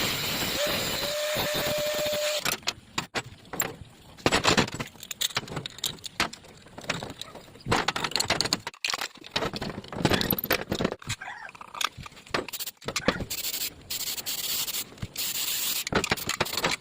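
A steady hiss for about two and a half seconds, then irregular clicks, scrapes and light rattles of hard objects being handled.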